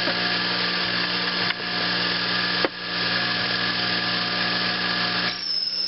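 Early Sherline mini lathe running, its motor humming steadily while the tool bit takes a taper cut on a 6061 aluminum part, with a hiss over the hum. About five seconds in the hiss drops away, leaving the motor hum and a faint high whine.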